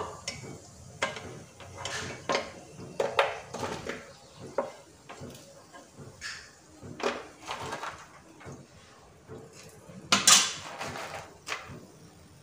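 A perforated slotted spoon clinking and scraping against a non-stick kadai and a plate as fried soya chunk kebabs are lifted out of the oil. Scattered light knocks, with a louder cluster about ten seconds in.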